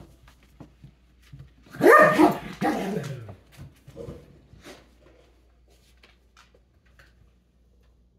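A dog gives two loud, deep barks about two seconds in, the second sliding down in pitch, amid light clicks of claws on a hardwood floor as the dogs play.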